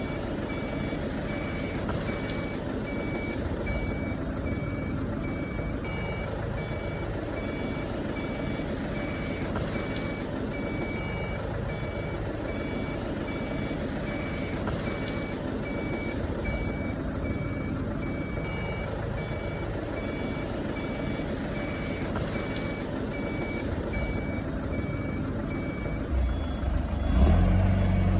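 Backup alarm on a reversing machine, beeping steadily about once a second over a running diesel engine. Near the end the beeping stops and the engine revs up louder.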